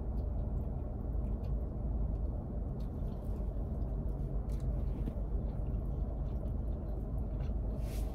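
Chewing a mouthful of burrito, with faint, scattered mouth clicks, over a steady low hum inside a car.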